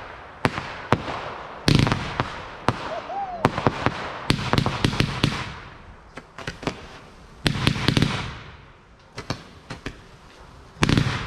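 Fireworks going off: a string of sharp bangs from bursting shells, some followed by bursts of crackle. The biggest reports come about two seconds in, around five and eight seconds, and again near the end.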